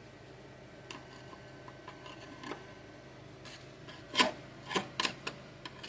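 A few short scraping strokes, loudest about four seconds in, with scattered light clicks between them: hand work rubbing at the car's metal underside.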